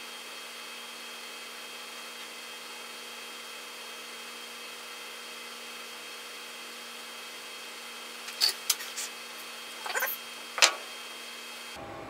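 Steady faint hum with a few thin steady tones, then a quick handful of small sharp clicks and taps in the last few seconds as soldering tools and small parts are handled on the workbench.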